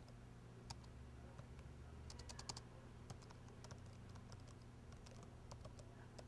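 Faint typing on a laptop keyboard: scattered key clicks, with a quick run of keystrokes about two seconds in.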